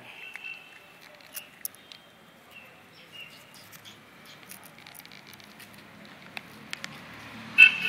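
Puppies whimpering in short, high, thin whines, with light pattering clicks and scuffs. A louder squeal comes near the end.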